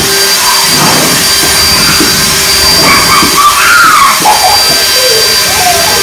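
Electric leaf blower running steadily, a loud rush of air with a thin high whine. High children's voices shriek over it around the middle.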